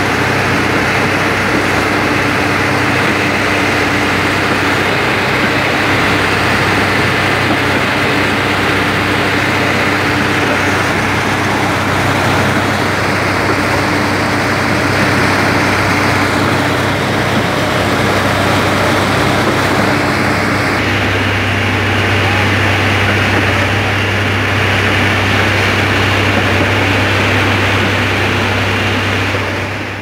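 Diesel engines of a transit concrete mixer truck and a trailer concrete pump running steadily under load as concrete is discharged into the pump hopper: a loud, even machinery drone with a low hum. A little over two-thirds of the way through, the hum changes, the higher tone dropping out and the low hum growing stronger.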